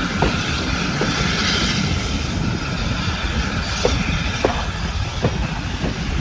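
Heritage railway passenger carriage running along the track, heard from an open window: a steady rumble of wheels on rail, with a few short knocks scattered through it.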